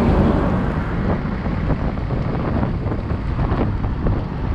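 Wind buffeting the microphone of a camera riding on a road bike, a steady rushing noise with a fluttering low rumble.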